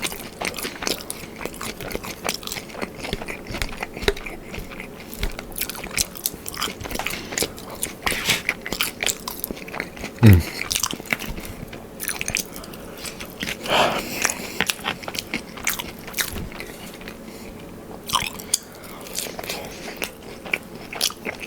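Close-up eating sounds: biting into and chewing crispy, sauce-coated air-fried buffalo cauliflower wings, with many irregular crunches and wet clicks. One short downward-sliding tone comes about ten seconds in.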